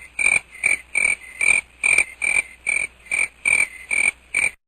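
Crickets chirping in an even rhythm, about two and a half shrill chirps a second: the crickets meme sound effect. It stops abruptly near the end.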